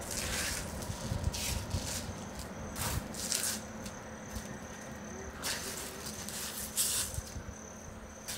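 Shuffling footsteps and rattling handled gear on a gritty floor, in short scuffs of hissy noise a second or two apart over low thuds. A cricket trills on and off.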